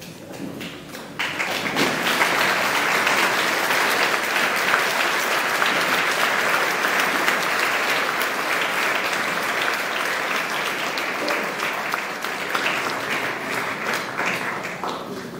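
Audience applause: clapping starts suddenly about a second in, holds steady, and tapers off near the end.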